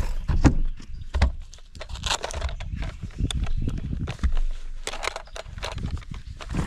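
Irregular clicks, knocks and rustling of handling noise in a boat, over a low rumble.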